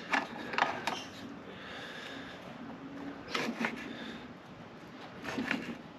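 Sharp metal clicks and clunks from a homemade steel tool-rest bracket being shifted and fitted on a metal lathe bed. They come in three short clusters: at the start, about halfway, and near the end.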